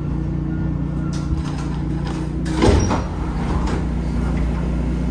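MARTA rail car's sliding passenger doors opening about halfway through, a short loud rush over the steady low hum of the stopped train.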